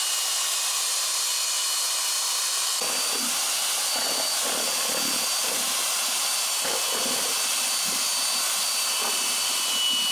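Corded electric drill with a round paddle mixer running steadily, stirring a barrel of liquid sulfur mixture into a swirl: an even motor whine and hiss. From about three seconds in, an irregular sloshing of the churned liquid joins it.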